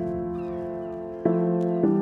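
Background music of soft, sustained chords, with a new chord struck about a second in and another near the end.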